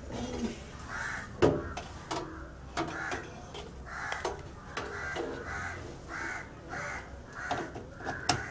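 Crows cawing over and over, a dozen or so short calls in quick succession, with a couple of sharp knocks from hands working inside a metal PC case.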